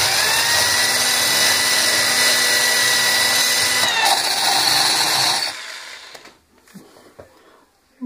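Electric drill with a diamond bit grinding a hole through a water-cooled porcelain saucer: a steady, loud grinding whine whose pitch shifts slightly about four seconds in. About five and a half seconds in the drill is switched off and spins down, the hole now through.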